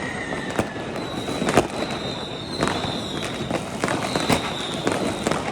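New Year's Eve fireworks: a constant crackle of firecrackers and rockets going off, punctuated by sharp bangs every second or so. A high whistle from a whistling rocket runs through from about a second in, falling slightly in pitch.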